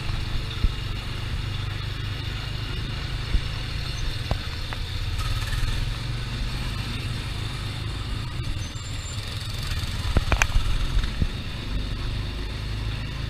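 Small gasoline engine of a Tomorrowland Speedway car running steadily under way, a low drone, with a few sharp knocks about ten seconds in.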